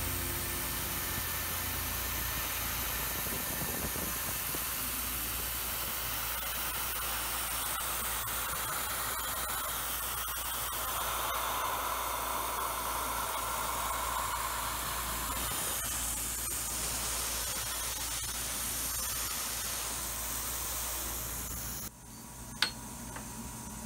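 Tormach PCNC 770 CNC mill running a chamfering pass on an aluminium part under mist coolant: a steady spraying hiss over the spindle's hum. It stops suddenly near the end, and a single sharp click follows.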